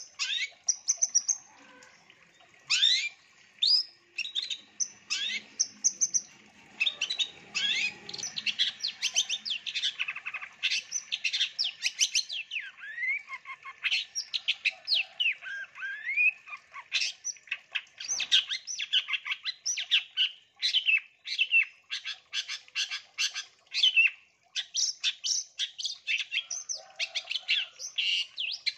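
Long-tailed shrike (cendet) singing a fast, varied song: strings of sharp chirps and quick rising and falling whistles, packed with mimicked call notes, with a brief lull near the middle and a dense rapid run near the end.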